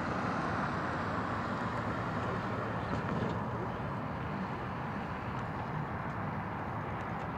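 Steady low rumble of distant road traffic, an even wash with no single vehicle standing out.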